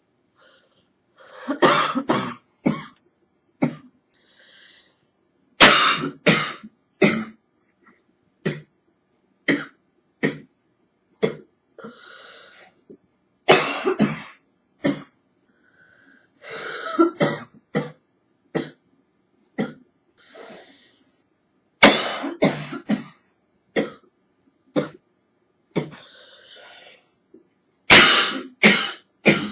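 A woman coughing from a cold: fits of several harsh coughs in quick succession alternating with single coughs, with audible breaths drawn in between the fits.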